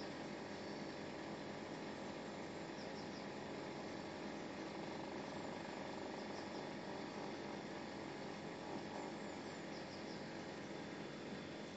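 Steady background noise: an even hiss with no distinct events.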